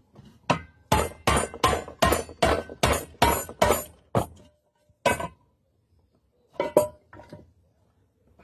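Sharp metal knocks and clinks on a pressure cooker: about ten quick ringing strikes, roughly three a second, then a few more spaced out near the end.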